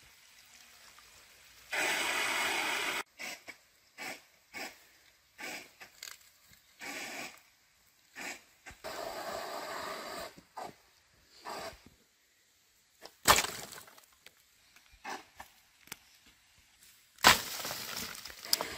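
Irregular short knocks, clicks and cracks with quiet gaps between them, and a brief rustling hiss about two seconds in. Two sharp, loud cracks in the second half, about four seconds apart, are the loudest sounds.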